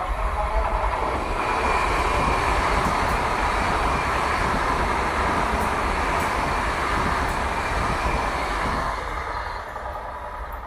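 TCDD HT80100-series (Siemens Velaro) high-speed electric train passing through at about 105 km/h: a steady rush of wheel and air noise that swells over the first two seconds, holds, and falls away about nine seconds in.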